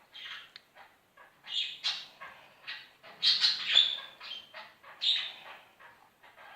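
Slime being squeezed and kneaded by hand, giving irregular wet squelching and squeaky bursts with short pauses between them.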